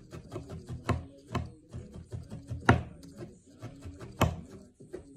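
Felting needle jabbing repeatedly into wool on a work pad, in irregular soft strokes of several a second. A few louder knocks stand out among them.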